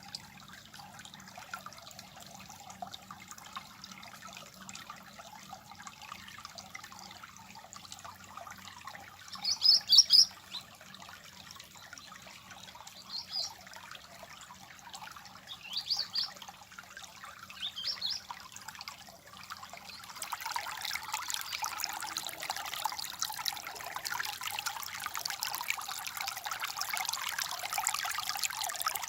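Water trickling and babbling steadily, with a bird chirping in short high bursts several times, loudest about ten seconds in. About twenty seconds in, the water becomes louder and fuller.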